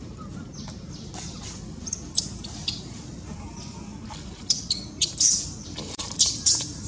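Dry leaf litter rustling and crackling as a macaque moves over it and grabs up her newborn, in short sharp bursts that come thick and loud from about four and a half seconds in. A few faint bird chirps come earlier.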